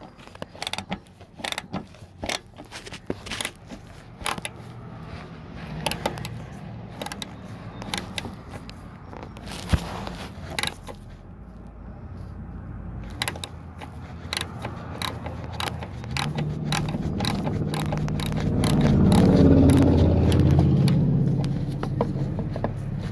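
Socket ratchet clicking in quick, uneven strokes as a 10 mm fender bolt is backed out. In the last third a low droning hum swells up, loudest shortly before the end, then eases.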